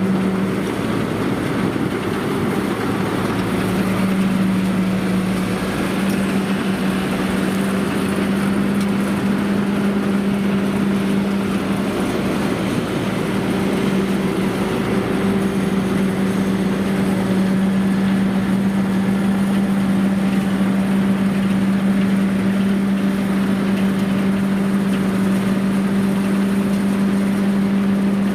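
Yanmar 4T100 engine of a homemade rice combine harvester running steadily at constant speed, with a strong steady hum over broad mechanical noise.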